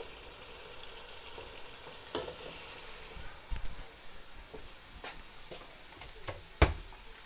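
Mutton and potato curry sizzling in oil in a pot while a plastic slotted spoon stirs it, at the bhuna stage where the meat and masala are fried down. A steady sizzle with scattered scrapes and knocks from the spoon against the pot, the sharpest knock near the end.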